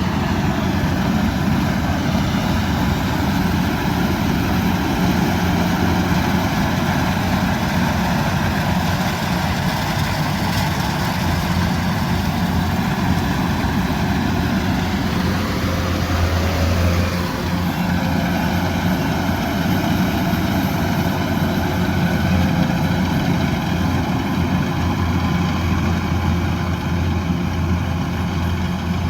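Kubota DC108X combine harvester running steadily, a deep, even engine hum, with a brief falling whine a little past halfway.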